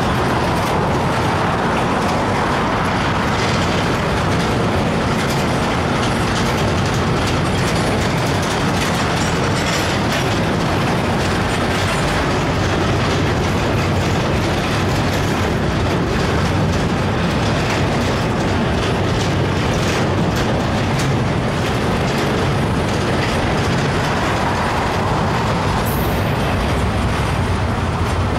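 Freight train cars rolling past close by: a steady, loud noise of steel wheels on rail with irregular clicking.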